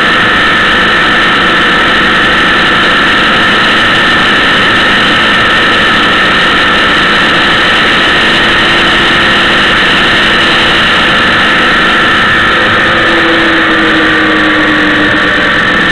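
Vehicle engine running steadily at road speed, recorded from the moving vehicle, with a dense even noise of travel. A lower engine tone drops slightly about thirteen seconds in.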